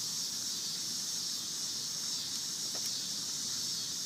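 A steady, even chorus of insects such as crickets, heard as a continuous high hiss, with one faint click near three seconds in.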